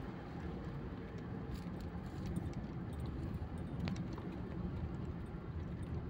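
Car driving along a road, heard from inside the cabin: a steady low rumble of engine and tyres, with a few faint clicks.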